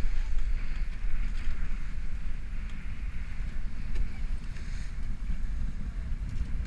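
Strong wind buffeting the microphone in a heavy, unsteady rumble, over the hiss of water rushing and splashing along the hull of a Cal 40 sailboat heeled and sailing fast through choppy seas.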